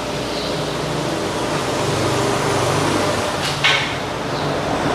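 Workshop machine hum, steady, with one short sharp knock about three and a half seconds in.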